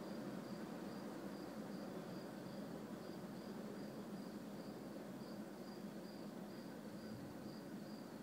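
Cricket chirping steadily, a short high chirp about twice a second, over a faint steady low background noise.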